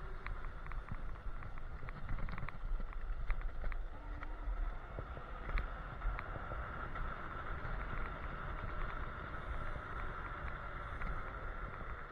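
Electric scooter ridden fast downhill: wind on the microphone and tyre rumble on the road, with a steady whine and scattered rattling clicks from the bumps.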